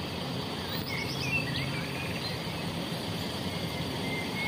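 Steady outdoor background noise with a faint low hum and a few short, high bird-like chirps.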